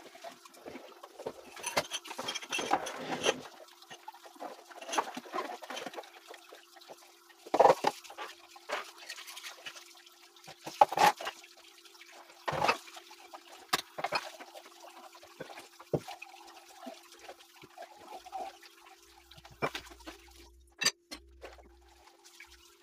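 Water running and splashing, with irregular clatters and knocks and a faint steady hum underneath.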